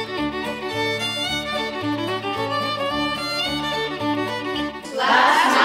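Instrumental music led by a fiddle over a bass line that changes note about twice a second. About five seconds in, a louder, denser, noisier sound cuts in over it.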